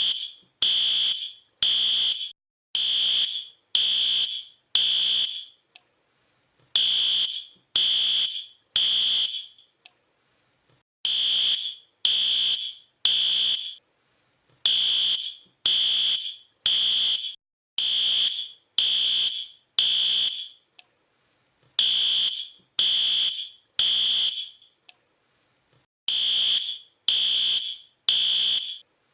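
Fire alarm sounding a loud, high-pitched beep about once a second, mostly in groups of three with a short pause between groups: the three-beep evacuation pattern.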